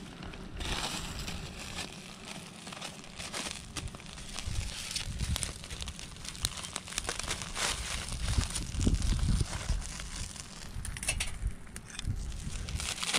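Wood bonfire crackling, with many short sharp snaps and pops over a low rumble.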